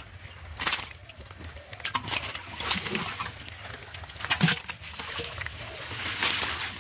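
Irregular splashes and sloshing in shallow muddy water as black catfish are grabbed by hand, with a sharp wet slap about four and a half seconds in as a fish is dropped into a pot.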